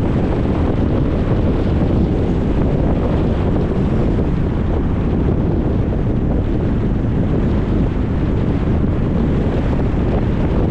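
Steady road noise of a car on the move: an even rumble of tyres and wind with no changes or separate events.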